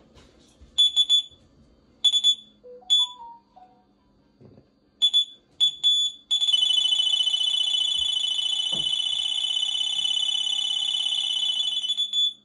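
Carp fishing bite alarm sounding: a few separate short high bleeps, then from about six seconds in a continuous high tone as line is pulled off, the sign of a fish taking the bait (a run). A few lower electronic notes sound around three seconds in.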